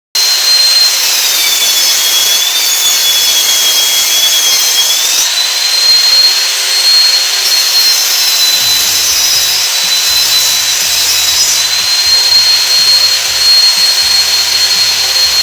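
Circular saw blade cutting particleboard panels: a loud, steady whine whose pitch sags about a second in as the blade loads up in the cut, and recovers near five seconds in.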